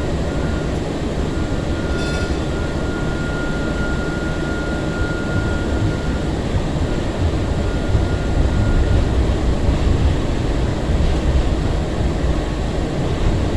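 Interior running noise of a 2002 Breda LRV3 light rail car: a steady low rumble of wheels and traction equipment. A steady high-pitched whine sounds through the first half and fades out, and there is a brief click about two seconds in.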